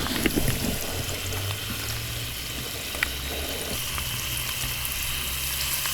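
Onions and spices frying in a pot, a steady sizzle, with one sharp click about three seconds in.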